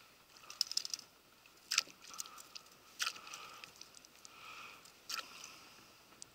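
Spinning reel cranked in a steady retrieve, a faint whirr that rises and falls with each few turns of the handle, broken by four sharp clicks.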